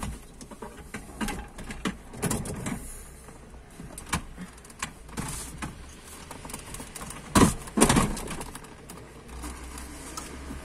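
Wheelchair frame being lifted and stowed inside a car: scattered clicks, knocks and rattles of the metal frame against the seats and door, with two loud thumps about seven and a half seconds in.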